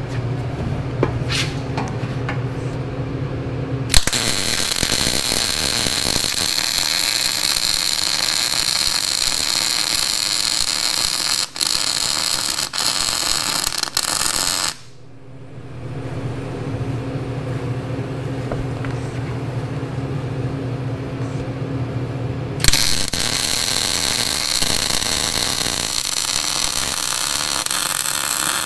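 MIG welding arc crackling and hissing as cracks in a tractor's steel front-end loader are welded up: one long bead starts about four seconds in and stops about fifteen seconds in, with two brief breaks. A second bead starts about six seconds before the end. Between the beads there is only a steady low hum.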